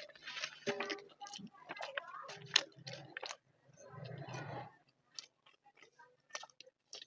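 Close-miked chewing of a mouthful of rice and curry, with wet mouth clicks, dense for about four and a half seconds and then thinning to scattered single clicks.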